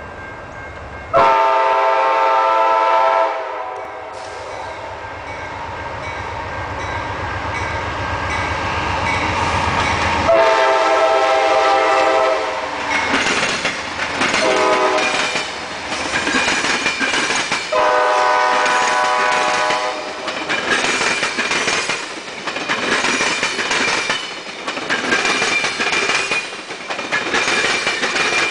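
Amtrak P42 diesel locomotive approaching and passing, its horn sounding the long, long, short, long grade-crossing signal, with the engine rumble growing louder between the first two blasts. As the passenger cars go by, their wheels clatter rhythmically over the rail joints.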